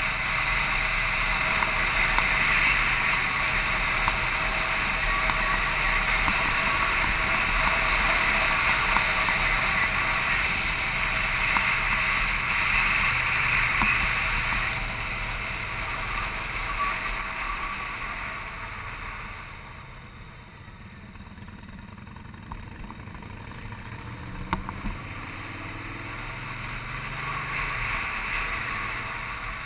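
Motorcycle on the move, heard from the bike: a steady rush of wind and road noise with the engine running underneath. It quietens about twenty seconds in, and a low engine note comes through before it builds again near the end.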